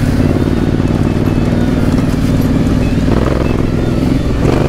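Honda CRF1000L Africa Twin's 998 cc parallel-twin engine running steadily under way on a dirt trail, with wind noise over it; the engine note dips briefly near the end.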